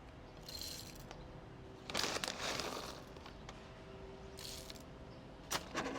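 Whole coffee beans being poured into the top of a manual coffee grinder: a few short rustling spells, the longest about two seconds in.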